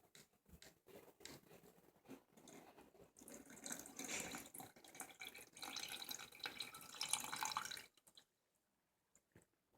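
Liquid poured from one cup into another cup holding baking soda: a faint trickling splash that builds about three seconds in and stops sharply near the end, with light handling clicks before it.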